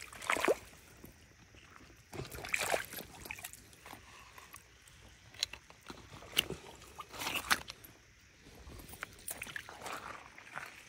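Footsteps on wet, muddy gravel: irregular crunches and squelches a second or two apart.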